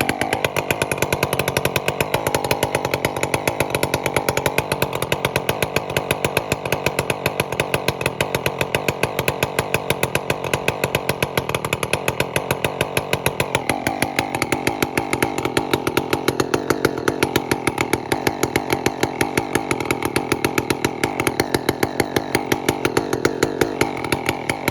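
Remington two-stroke chainsaw with a homemade welded exhaust pipe, running steadily after being started; its note shifts lower about halfway through.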